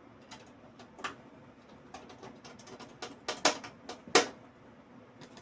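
Small scattered clicks and ticks of motherboard standoffs and screws being handled and fitted in a PC case, with two sharper clicks about three and a half and four seconds in.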